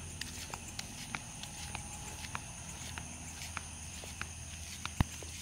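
Footsteps of a person walking, soft irregular taps about every half second, over a steady high-pitched drone of night insects.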